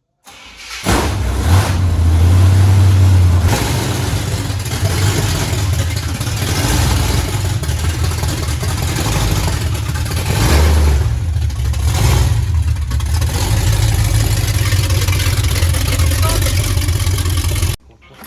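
The 454 big-block V8 of a 1977 Chevrolet C20 pickup catches about a second in and runs loudly with a deep rumble, the revs varying as the truck is moved. The sound stops abruptly near the end.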